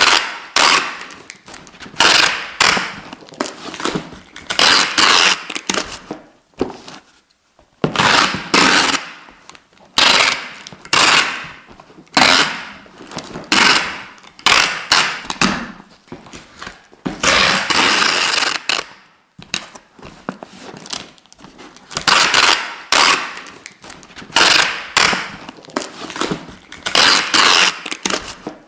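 Adhesive tape pulled off the roll again and again, each pull a crackling rip lasting about a second, with one longer pull a little past the middle.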